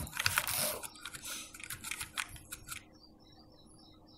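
A run of quick, irregular clicks from a computer's controls as the page is scrolled, for about the first three seconds, then stopping.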